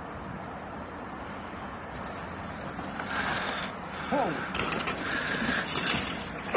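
Mountain bikes riding a dirt trail: a steady rush of tyre and wind noise that grows louder and rougher from about three seconds in.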